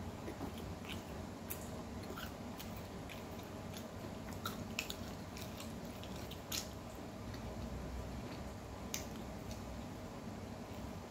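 Close-up chewing and mouth clicks of someone eating khubz (Arabic flatbread) gone cold and tough, with scattered small dry crackles as pieces of the bread are torn by hand.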